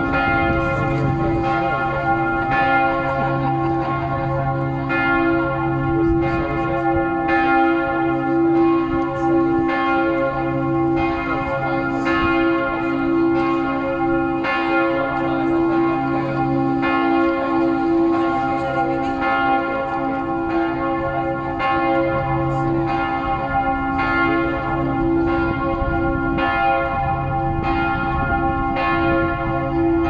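Matthias Church bells ringing in a continuous peal, a new stroke about once a second over the overlapping ring of earlier strokes.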